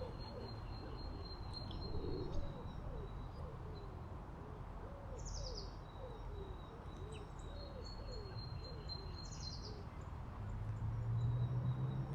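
Birds calling: a low, evenly repeated series of about a dozen hooting notes, with thin high calls above it and two quick falling calls midway. A low hum rises near the end.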